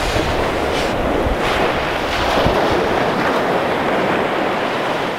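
Small waves breaking and washing up the beach, with wind buffeting the microphone; a steady rush of surf noise.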